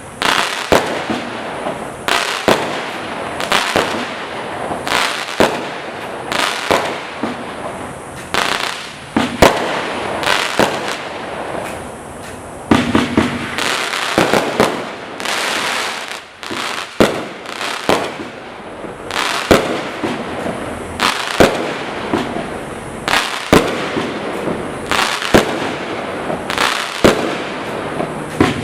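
Black Cat 'Fiesta' consumer firework firing a long sequence of shots. Sharp bangs come about once a second, some in quick pairs, over a continuous crackling hiss.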